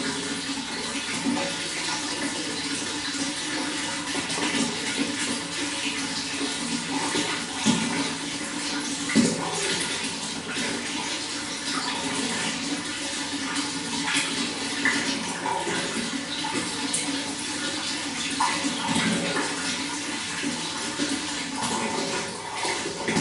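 Running water flowing steadily, with occasional brief louder splashes.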